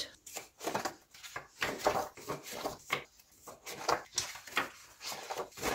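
Pages of a three-ring binder being turned one after another: irregular rustling and flicking of paper.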